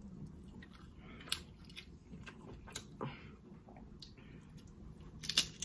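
Faint close-miked eating sounds: lip smacking and chewing, with scattered soft clicks and a sharper smack about five seconds in.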